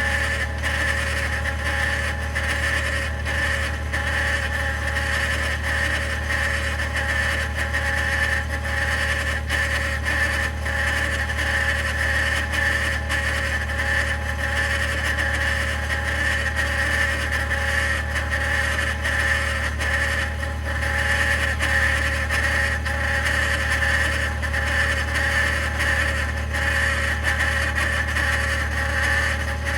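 2021 Ford F-150 PowerBoost's 3.5-litre twin-turbo V6 hybrid running steadily after a remote cold start, a low hum with a steady higher whine over it. This is the cavitating or grinding noise the owner reports on cold starts.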